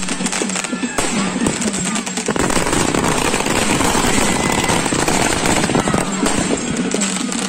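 Fireworks going off close by, ground-level bursts throwing out showers of sparks: a dense, unbroken string of sharp cracks and bangs, many a second.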